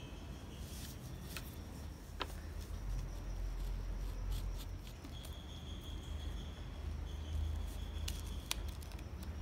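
Pencil marking along a wooden ruler, then a snap-off utility knife blade slicing through a paper bag onto cardboard, with a few sharp clicks of the blade. A steady low hum runs underneath.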